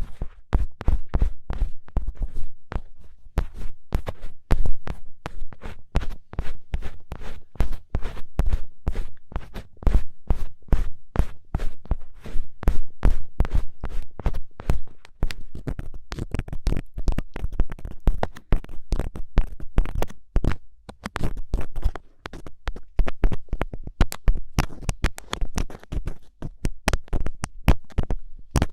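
Ear pick scraping and scratching close on the microphone in quick, irregular strokes, several a second, with a dull thud in each stroke.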